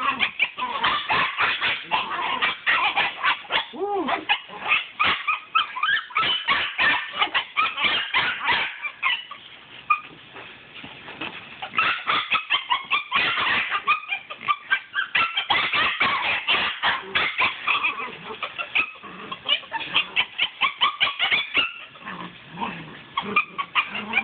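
8-week-old Belgian Malinois puppy yipping as it chases and bites at a toy dragged along the ground in prey drive, with a busy scuffle of feet and paws in dry leaves and dirt. The activity eases off for a couple of seconds just before the middle, then picks up again.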